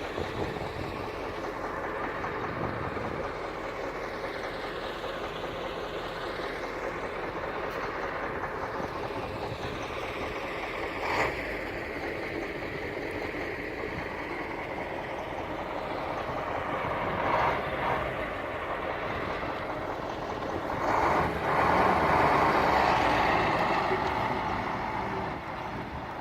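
Heavy earth-moving machinery running steadily, with a few brief louder bursts and a louder stretch of a few seconds near the end.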